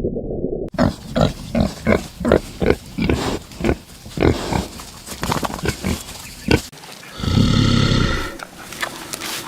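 A pig grunting in a quick series of short grunts, about three a second, then one longer call about seven seconds in.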